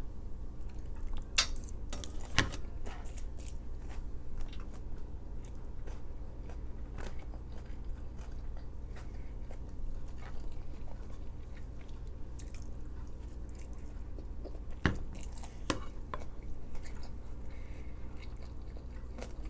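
Close-up chewing and biting of Chinese takeout food, with a few sharp crunchy clicks, the loudest about two seconds in and again about fifteen seconds in, over a steady low room hum.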